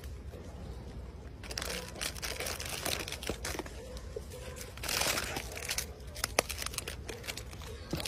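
Plastic snack wrappers crinkling and rustling as monkeys grab packets out of a cardboard box, starting about a second and a half in and loudest about five seconds in.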